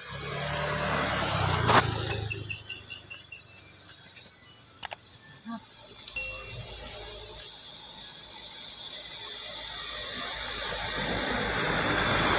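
A motorcycle passes at the start with a low engine rumble, and a short run of high chirps follows. Near the end, a sugarcane-laden Mitsubishi Canter truck's engine grows steadily louder as the truck strains to pull out of deep mud, short on torque.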